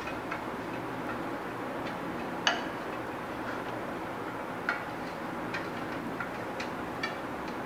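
Hands mixing crumbly cookie dough in a glass bowl, with a few sharp clinks of the hand knocking the glass, the loudest about two and a half seconds in. A steady hiss runs underneath.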